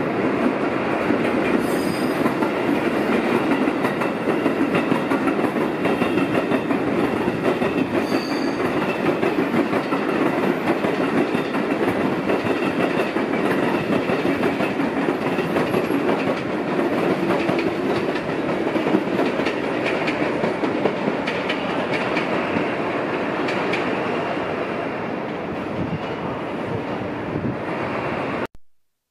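KiHa 85 series diesel multiple unit pulling out of the station, its diesel engines running under power with wheels clacking over the track, and brief high squeals about two and eight seconds in. The sound fades a little as it draws away, then cuts off suddenly near the end.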